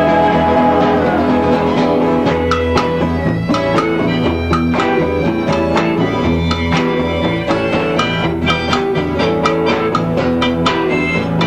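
Live acoustic band playing an instrumental passage: guitars and acoustic bass over a pulsing bass line, with frequent percussion strikes.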